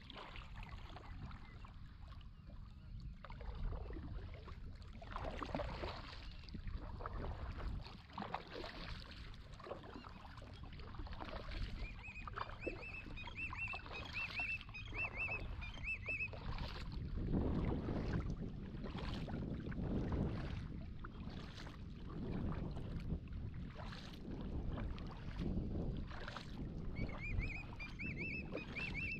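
Kayak paddle strokes splashing in the water at an uneven pace over a steady low rumble. A small bird calls in a rapid run of chirps twice, about twelve seconds in and again near the end.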